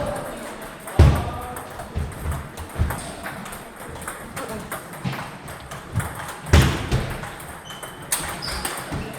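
Table tennis ball clicking off paddles and the table in a rally: sharp, irregularly spaced hits, with two louder knocks about a second in and about six and a half seconds in.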